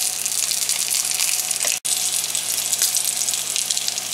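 Breaded steak frying in hot oil in a cast-iron skillet: a steady sizzle with fine crackling, broken by a split-second gap just under two seconds in.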